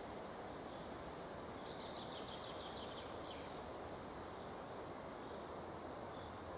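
Steady outdoor background noise, with a faint, quick series of high chirps about two seconds in.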